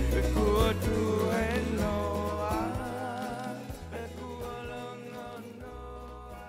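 Background song with a singing voice over bass and chords, fading out steadily toward the end.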